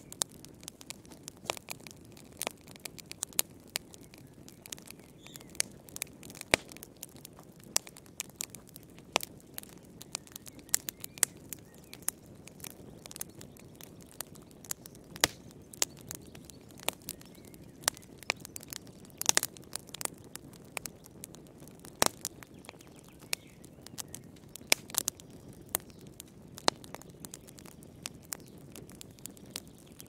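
Log fire crackling in a fireplace: irregular sharp pops and snaps, often a few a second, over a soft steady sound of the burning.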